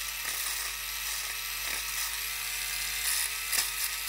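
Battery-powered electric nail file running with a steady small-motor hum, its pitch dipping briefly a few times.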